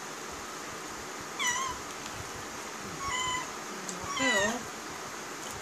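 A cat meowing loudly three times.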